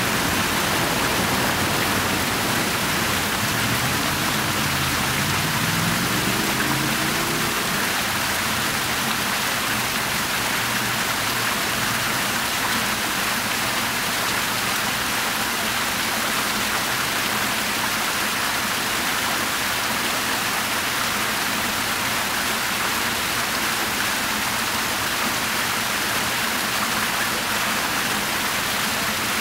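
Fountain water splashing steadily: water spilling over the rim of a raised basin and a ring of small arcing jets falling into the pool. A few seconds in, a low tone rises in pitch over several seconds.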